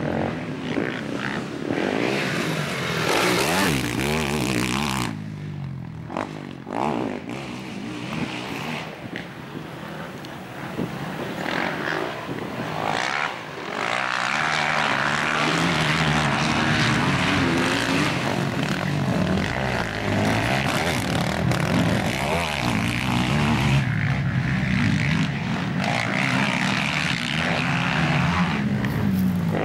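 Racing quad bikes' engines revving up and dropping back as they ride the dirt track, several at once, their pitch rising and falling with each throttle change.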